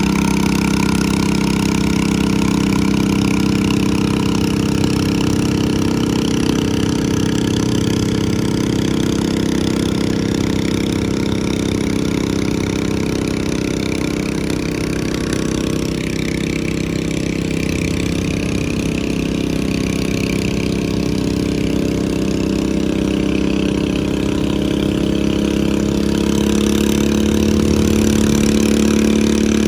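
Engine of a modified pulling lawn mower running hard and steadily under load. Its note sags slightly around the middle, then rises in pitch and gets louder near the end.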